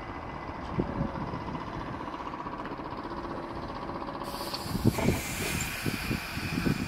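Trolleybus running with a steady hum. About four seconds in a sudden hiss of air starts, and a high steady whine joins it about a second later.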